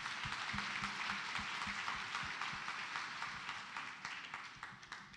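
Church congregation applauding, a dense run of hand claps that dies away near the end.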